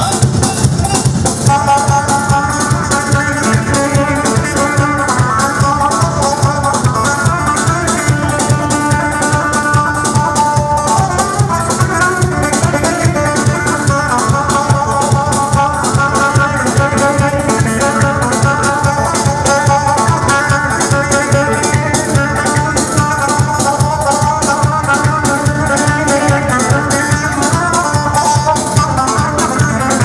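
Kurdish wedding dance music played live by a band: an instrumental melody with a plucked-string sound over a steady drum beat.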